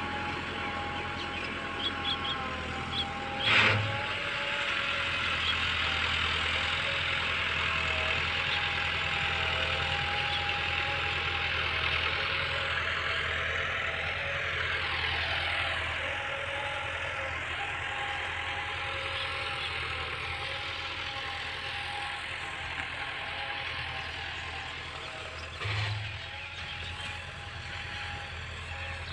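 Tractor's diesel engine running steadily under load while pulling a chisel cultivator through dry ground, heard across the field; its note dips briefly about halfway through. Two short thumps, one a few seconds in and one near the end.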